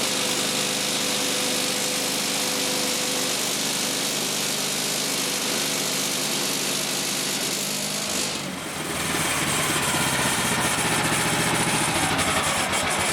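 Woodland Mills HM 130 MAX band sawmill running, its engine driving the blade through a log, on a blade that is getting pretty dull. The sound changes about eight and a half seconds in, with a brief dip and then a harsher, louder running.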